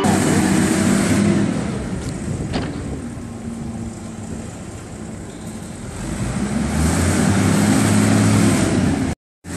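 A wheel loader's diesel engine working at a silage heap: it revs hard, eases off for a few seconds, then revs up again. The sound cuts out abruptly just before the end.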